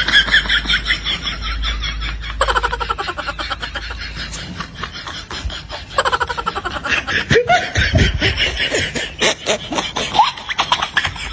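Dubbed-in laughter sound effects: rapid pulsing laughs, with fresh bursts starting abruptly about two and a half and six seconds in.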